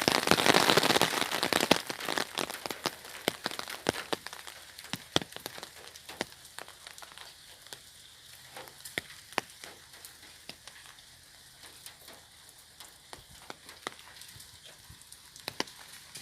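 Raindrops pattering on an umbrella canopy: a dense, heavier patter in the first couple of seconds that thins out into scattered single drops.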